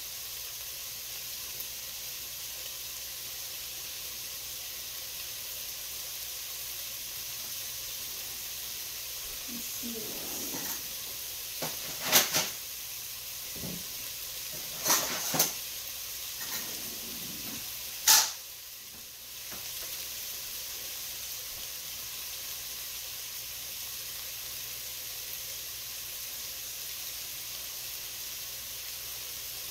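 Onions, garlic, celery and leeks sautéing in hot oil in an enameled cast-iron Dutch oven, sizzling steadily. A few sharp knocks come in the middle; the loudest are about 12 and 18 seconds in.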